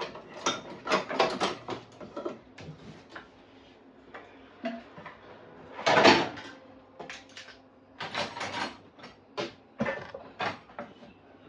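Plastic grocery bag rustling and crinkling in irregular bursts as groceries are handled, with the loudest crackle about six seconds in.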